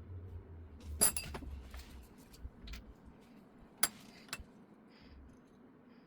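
Small hard parts being handled and clinking together: a sharp ringing clink about a second in, another near four seconds in and a lighter tap just after, over low handling rumble early on.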